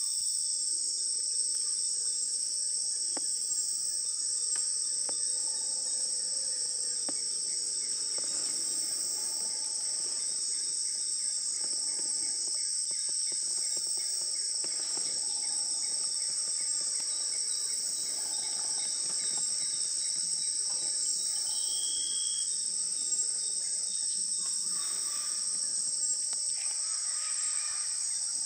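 Dense chorus of rainforest insects: a steady, unbroken high-pitched shrilling that holds at one level throughout, with a few faint knocks beneath it.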